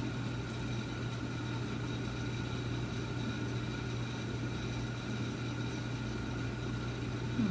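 A steady, even low hum with faint high whining tones held above it, unchanging throughout.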